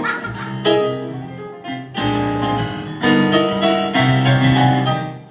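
Piano chords played on a stage keyboard, a new chord struck about every second and left to ring, in an instrumental passage with no singing; the playing fades away near the end.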